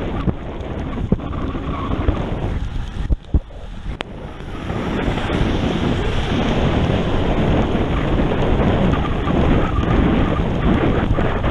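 Wind rushing and buffeting on the microphone of a bike-mounted camera on a fast road-bike descent, mixed with tyre hiss on wet pavement. It dips briefly about three seconds in, then grows louder and stays strong.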